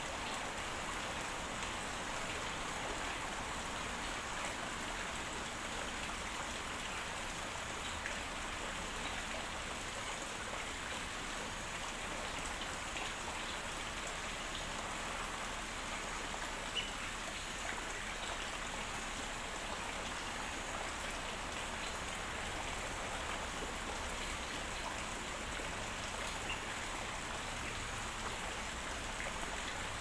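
Steady patter and splash of falling water, even and unbroken.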